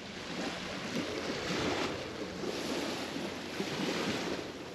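Small waves washing on a sandy shore, an even swelling hiss, with wind buffeting the microphone.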